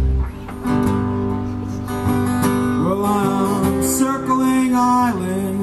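Song with strummed acoustic guitar; a singing voice comes in about three seconds in.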